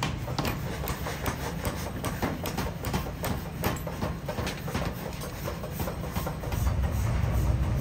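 Power forging hammer striking a red-hot steel workpiece on the anvil in rapid repeated blows, several a second, over a steady low machine rumble that grows louder near the end.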